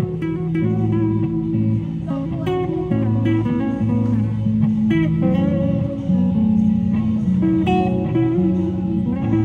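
Amplified archtop electric guitar played solo, with low bass notes moving under chords and a melody line.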